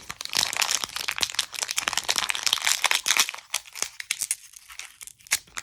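Pokémon card booster pack's foil wrapper crinkling and being torn open, a dense run of crackles for the first few seconds that thins out toward the end.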